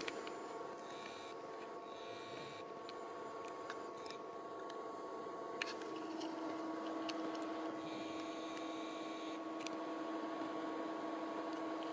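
Sony VPL-EX1 3LCD projector's cooling fan running with a steady hum made of several tones. The hum shifts and gets slightly louder about halfway through, with a few faint clicks.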